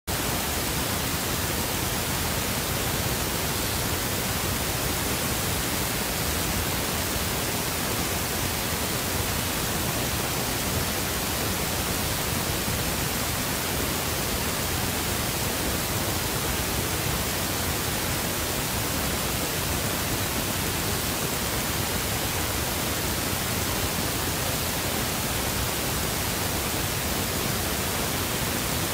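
Steady, even hiss like static, spread across all pitches, with no change in level and no distinct sounds in it.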